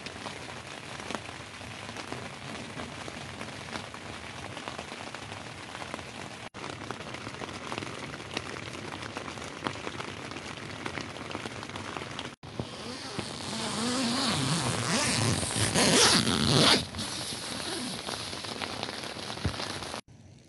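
Rain falling on the fabric of a Backcountry Urban 4P tent's vestibule, heard from inside as a steady patter of many small drop hits. A few seconds past the middle it swells into a louder, hissier rush, then drops back.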